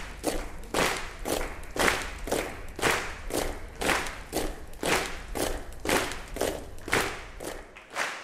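Audience clapping in unison to a steady beat, about two claps a second, dying away near the end.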